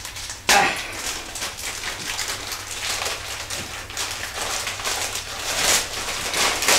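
A plastic poly mailer being torn open and crinkled by hand. A sharp rip comes about half a second in, then uneven rustling and crackling.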